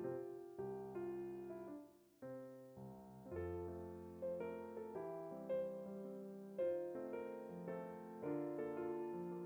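Background music: gentle piano melody, notes struck one after another, with a brief pause about two seconds in.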